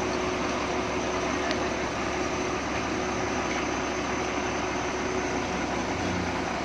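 Wheel loader diesel engine idling steadily, an even mechanical noise that holds at one level throughout.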